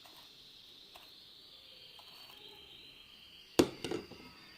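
Faint steady high-pitched hum under quiet room tone, with a sharp knock about three and a half seconds in followed by a few lighter taps.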